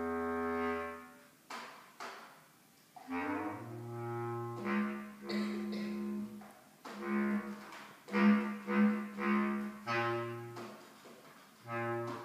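Solo bass clarinet playing. A held note fades out about a second in, followed by two short unpitched puffs of noise. Then comes a string of separate notes, some short and sharply attacked, others held for a second or so.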